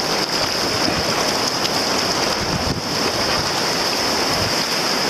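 Steady rush of river rapids, whitewater churning around a racing tandem paddle boat as it runs the rapid.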